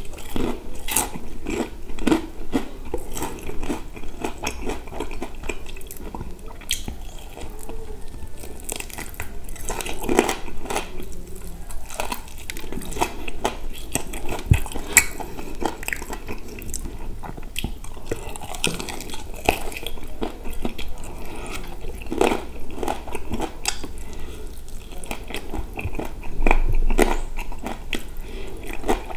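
Chewing and biting into crispy deep-fried chicken, with many short crunches and wet mouth sounds.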